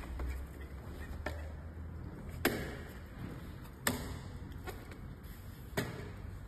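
Folding electric wheelchair's frame clacking and knocking as it is collapsed and tipped on its wheels: three sharp knocks over a few seconds, with fainter clicks between them.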